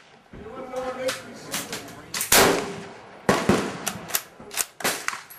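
A Yugoslav M48 Mauser bolt-action rifle in 8mm Mauser fires one loud shot about two seconds in. A quick run of sharp clacks and cracks follows as the bolt is worked.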